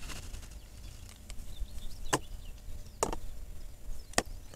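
Three short sharp knocks, about a second apart, from handling at the waterside, over a faint outdoor background.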